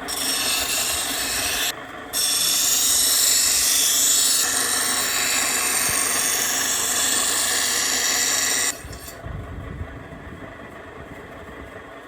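Small engine-driven power tool run hard in two bursts, a short one and then one of about six seconds, each cutting off sharply. It drops back to a quieter steady running sound near the end.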